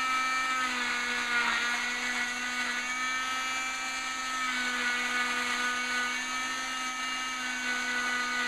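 Electric oscillating cast saw running with a steady whine as its round blade cuts along a fiberglass arm cast; the pitch dips briefly about three times as the blade bears into the cast.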